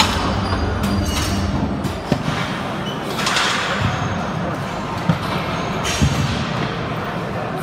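Busy weight room: indistinct voices and a few dull thuds of weights being set down or knocked.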